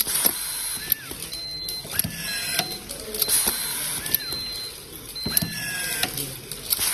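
Automatic screw-feeding electric screwdriver driving screws into wood, about five in a row, roughly one a second. Each screw gives a sharp click and a short motor whine that rises and then drops as the screw seats, over a steady high hiss.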